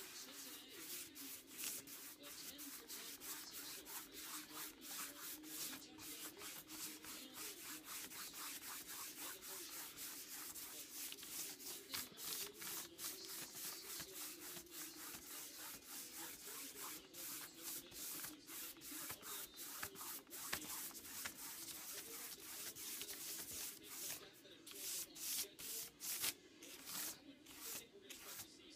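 A wide paintbrush scrubbing acrylic wash over a board: a steady run of rough strokes, about three a second, bristles rubbing on the surface. The strokes grow louder and more spaced out near the end.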